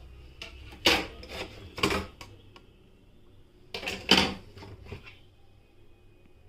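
Hard objects knocking and clattering in two short clusters of sharp clicks, one about a second in and one about four seconds in, over a faint low hum.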